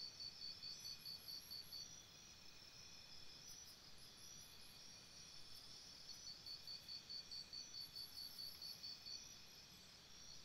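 Faint cricket-like insect trilling: a steady high-pitched pulsing of about six pulses a second. It is plainest in the first two seconds and again from about six to nine seconds in, and fainter in between.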